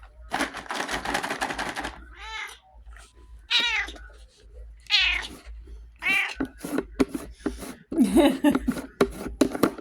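Tabby flame point Siamese cat meowing again and again, a string of separate meows a second or so apart, asking for something. A burst of rustling noise comes early on, before the first meow.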